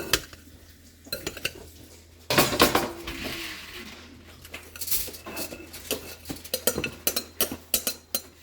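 Kitchen utensils clinking, knocking and scraping against dishes and a bowl while shredded tofu is handled and mixed. There is a louder burst of scraping about two and a half seconds in, then a run of quick clinks.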